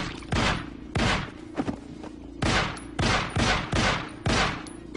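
A volley of about seven gunshots, each a sharp crack with a ringing echo tail: two shots about a second apart, a short gap, then about five more in quicker succession.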